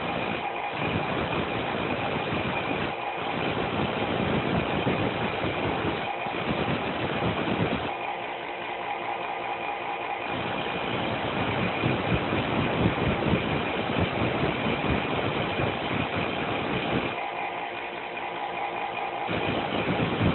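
Power grinding tool running with a steady whine, grinding a steel lock-pick blank to shape with a continuous rough grinding noise. Twice, about eight seconds in and again near seventeen seconds, the grinding eases for about two seconds while the motor keeps running.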